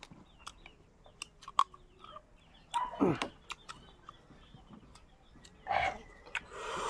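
Scattered small clicks and taps of a meal being eaten, with two short vocal sounds: the first, about three seconds in, falls sharply in pitch, and the second comes near the end.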